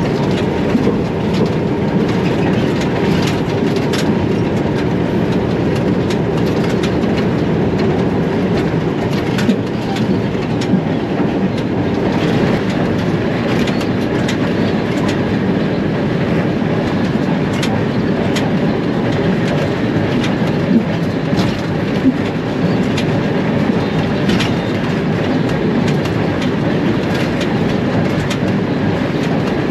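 ALCO diesel locomotive running at speed, heard from inside the cab: a steady, loud engine and running rumble with scattered sharp clicks of the wheels over the rail joints.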